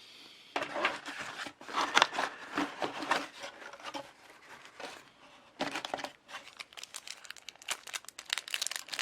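Packaging crinkling and crackling in irregular bursts as a camcorder accessory is unwrapped, with a short lull about four seconds in.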